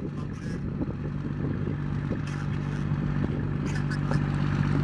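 A heavy vehicle's diesel engine running steadily, with scattered light clatter of debris being handled.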